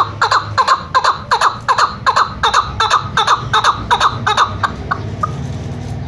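Chukar partridge calling: a fast series of short notes, each sliding downward, about three a second, that stops about five seconds in.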